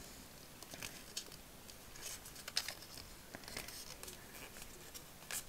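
Faint rustling and scattered soft clicks of a small piece of thin cardboard being folded and creased between the fingers.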